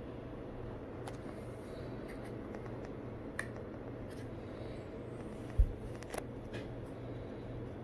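Steady low room hum with a few faint clicks and one low thump a little past halfway: handling noise from a phone and small bottles being moved about on a desk.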